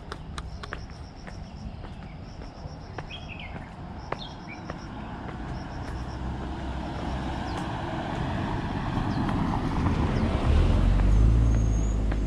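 A road vehicle approaching, its noise swelling steadily over several seconds and passing close near the end with a deep rumble. Footsteps click on the path in the first few seconds, and insects chirp faintly in pulses.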